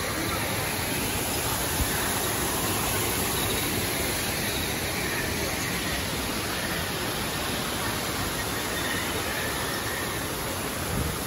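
Steady rush of water falling from an artificial waterfall down rockwork.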